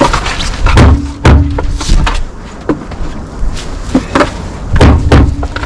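Heavy thumps and knocks, in two pairs about half a second apart, one pair about a second in and one near the end, with lighter taps in between over a low rumble.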